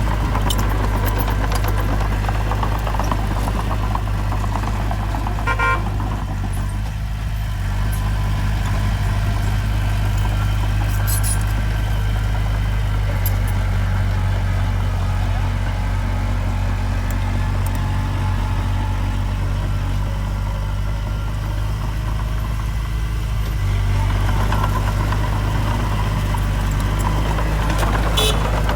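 Heavy diesel engine of earthmoving machinery running steadily under load, with a deep, even drone and a brief high tone about six seconds in.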